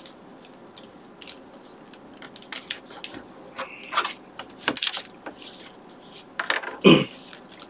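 Origami paper rustling and crackling as it is folded and creased by hand, with scattered small clicks. The loudest moment is a sharper rustle or knock about seven seconds in.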